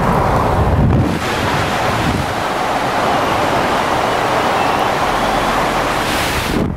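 Steady rush of wind and tyre-on-road noise from a moving Mitsubishi Pajero Sport, heard through a camera mounted outside beside a wheel, with wind buffeting the microphone. In the first second it is the lower rumble of the vehicle heard from inside the cabin, and the sound cuts off abruptly near the end.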